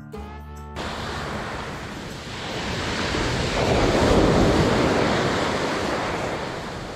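Sea waves surging onto the beach: a wash of surf that builds to a peak about four seconds in, then eases.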